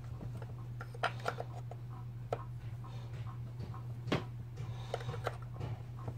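Scattered light clicks and taps of a screwdriver and small parts being worked into a Stihl MS180C chainsaw's housing, the sharpest about a second in and about four seconds in, over a steady low hum.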